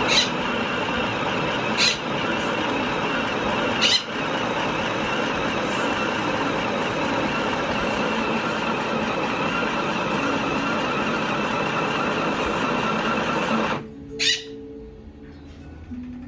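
Electric motor of a jammed Sewing Machine 608A running with a steady noise, with sharp clicks about two and four seconds in; it cuts off about fourteen seconds in.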